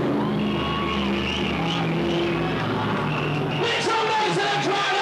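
Dance music from a DJ set, loud over a club sound system, with held synth notes. Near the end a voice shouts over the music.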